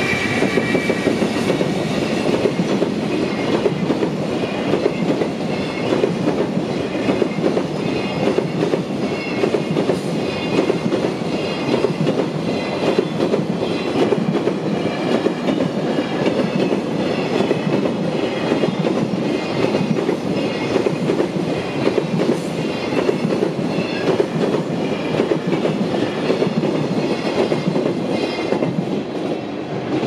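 Freight train hauled by an EF210 electric locomotive passing a level crossing at speed: a long, steady rumble and clatter of wagon wheels on the rails. The crossing's warning bell rings under it, standing out again near the end as the last wagons clear.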